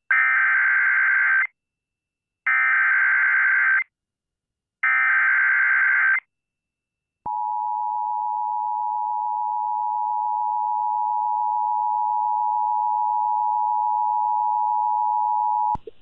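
Emergency Alert System activation on WBAP 820 AM: three identical bursts of SAME header data, each a harsh warbling buzz about a second and a half long, then the two-tone EAS attention signal held steady for about eight seconds before it cuts off. The header and tone announce a relayed severe thunderstorm warning.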